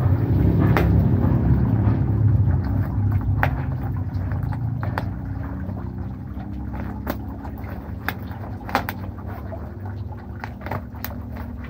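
Scissors snipping through the plastic and bubble-wrap of a parcel, heard as sharp, scattered clicks and crinkles, over a steady low rumble that is loudest in the first few seconds and then eases.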